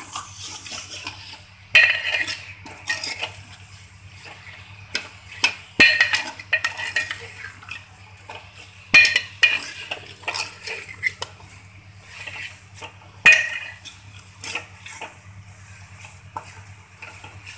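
Steel ladle scraping and clinking against a hammered steel pot as chunks of mutton are stirred, with a louder metallic clank every few seconds.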